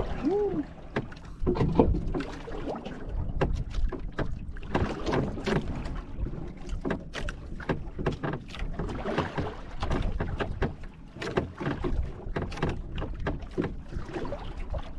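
Wind buffeting the microphone and water slapping against the hull of a small boat at sea, with scattered sharp knocks and clicks throughout.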